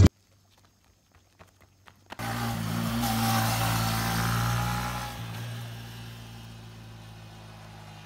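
A vehicle engine running, starting suddenly about two seconds in after a few faint clicks, holding steady, then fading away over the last few seconds.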